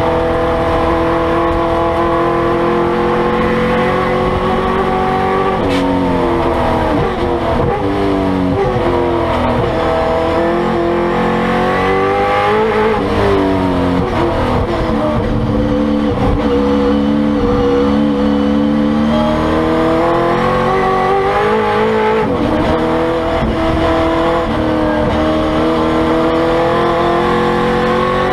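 1970 Chevrolet Camaro Trans Am race car's V8 engine under hard racing load, heard inside the cockpit: the pitch climbs steadily through each gear, then drops sharply several times as the driver lifts and downshifts for corners.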